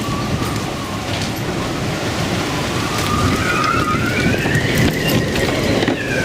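Storm-force wind (about 60 knots) whistling through a sailboat's rigging, a wavering whistle that climbs in pitch about halfway through, over a loud, steady rush of wind and sea.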